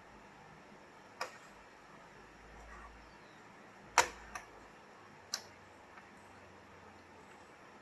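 A few sharp clicks of small plastic Rubik's Cube pieces being set down on a surface, three clear ones with the loudest about four seconds in.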